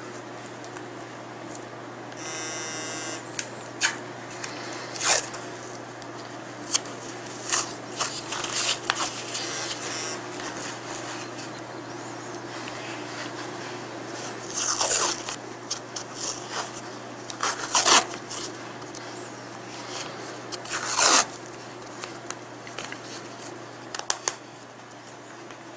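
Adhesive medical tape being pulled off its roll in several short, loud rips, with rustling and crackling of bandage and absorbent pads as a cat's foreleg is bandaged. There is a brief buzzing sound about two and a half seconds in.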